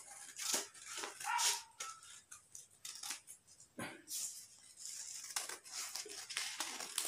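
Steel scissors cutting a folded sheet of coloured paper in a series of short snips, with paper rustling as the sheet is handled.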